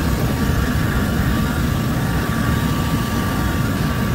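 Electric heat gun running steadily with a faint, steady motor whine, blowing hot air onto a dented plastic car bumper to soften it before the dent is pushed out.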